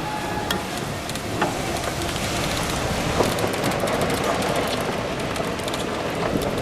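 Golf cart moving, a steady rumbling ride noise with rattles and a few sharp knocks.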